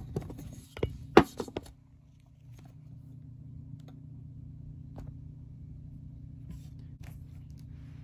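Several sharp clicks and knocks in the first second and a half, then a steady low hum.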